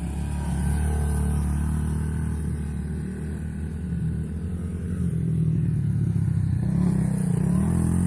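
Two small four-stroke dirt bike engines, a Honda 110 and a Suzuki DR-Z70, running at gentle throttle as the bikes circle the grass. The engine note wavers up and down, with a few short revs near the end.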